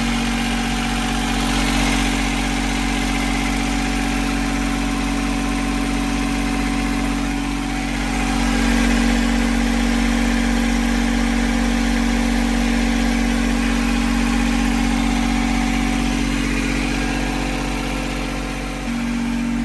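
A boat's small auxiliary engine running steadily at idle in its deck hatch. It grows a little louder about eight seconds in.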